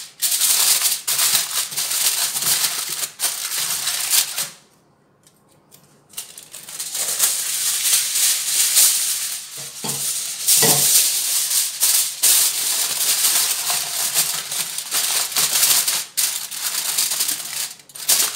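Aluminium foil crinkling and rustling as a sheet is pulled over a round metal pan and crimped around its rim by hand, with a short pause about five seconds in.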